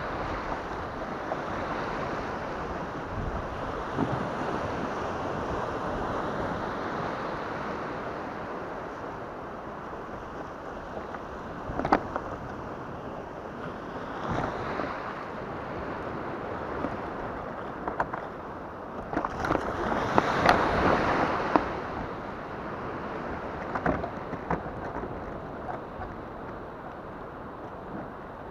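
Shallow surf washing and sloshing around a sit-on-top fishing kayak and a wading angler's legs, with wind buffeting the microphone. A few sharp knocks come through, and a louder rush of water swells about two-thirds of the way in.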